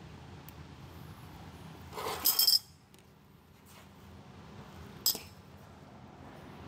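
Metal tools clinking: a short, ringing metallic clatter about two seconds in, then a single sharp metallic click about five seconds in, over low garage room noise.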